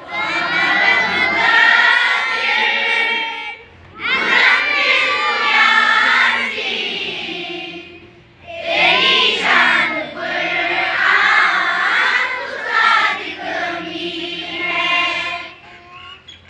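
A large group of children singing together in unison, in three long phrases broken by short pauses for breath.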